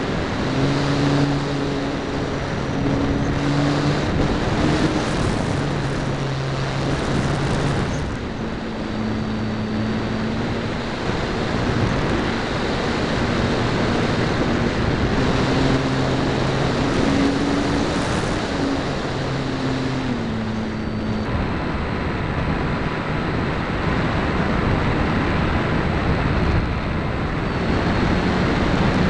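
RC model airplane's motor and propeller heard from a camera mounted on the plane, a rough rumbling noise with a hum that steps up and down in pitch as the throttle changes.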